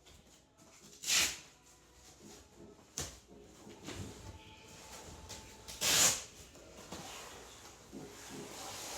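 Pack and play being assembled: scattered clicks and rustling handling noises, with two louder brief swishes about a second in and about six seconds in.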